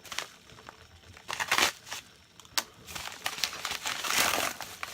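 Packaging crinkling as a mailed package is handled and opened, in two rustling bursts, one about a second and a half in and one near the end, with a sharp click between them.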